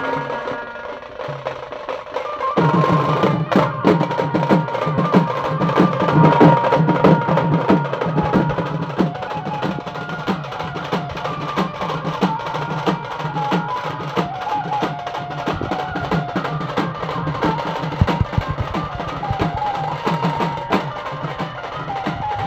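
A group of dhol-style barrel drums beaten with sticks in a fast, dense, steady rhythm, the drumming growing louder about two and a half seconds in.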